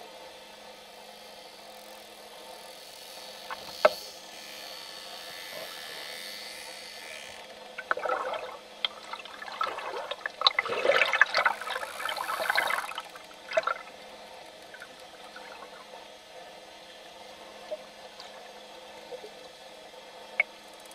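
Water heard from underwater: a steady hiss, a single sharp knock a little before four seconds in, then about six seconds of bubbling and splashing in the middle, the loudest part, with the snorkelers kicking at the surface.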